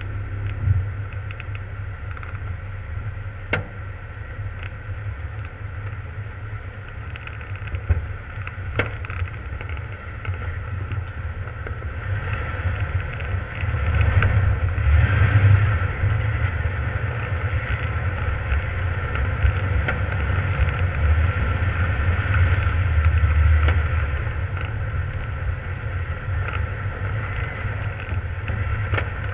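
Jeep engine and drivetrain running in a steady low rumble as it drives over a snowy off-road trail. It grows louder for several seconds around the middle, and a few sharp knocks from bumps break in early on.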